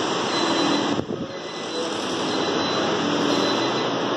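Steady rushing of water from an artificial waterfall cascading down a rock wall, briefly dipping in level about a second in.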